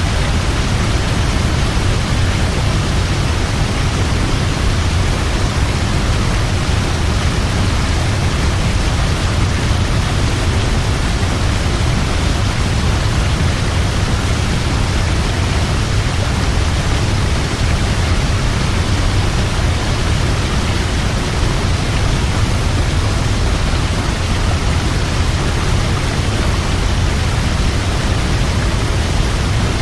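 Large waterfall: a steady, unbroken roar of falling water, heavy in the low end.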